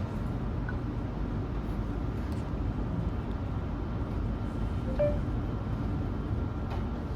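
Steady low background rumble, with a short faint tone about five seconds in.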